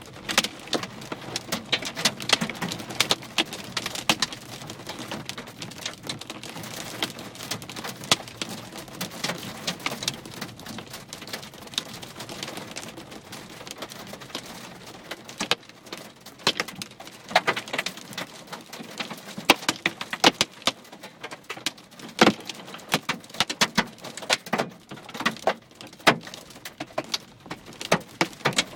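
Hailstones striking hard surfaces in a storm: a dense, irregular clatter of sharp cracks over a steady hiss of falling precipitation.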